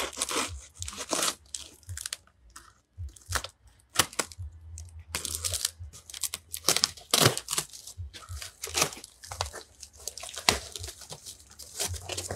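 Knife slitting the packing tape on a cardboard box, then the tape and flaps being ripped open: a run of irregular scrapes, rips and crinkles.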